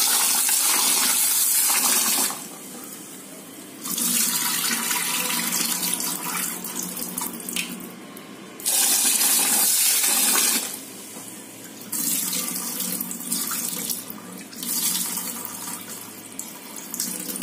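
Kitchen tap running into a steel bowl of broken pearl millet in a stainless steel sink as the grain is rinsed by hand, the water splashing loudly in several spells of a few seconds with quieter gaps between.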